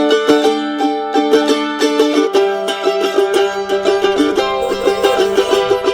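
Background music: a plucked-string instrumental passage with quickly repeated picked notes, growing fuller about two seconds in.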